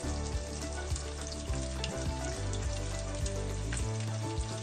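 Breaded pork cutlet (tonkatsu) frying in hot oil in a pan: steady sizzling with a scatter of small crackling pops.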